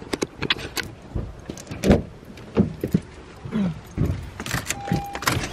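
Handling noise: a run of sharp clicks, knocks and low thuds as things are moved about, with one short steady electronic beep near the end.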